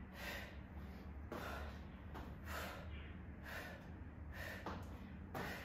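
A woman breathing hard from exertion during a kettlebell lunge set: faint, quick puffs of breath about once a second, over a low steady hum.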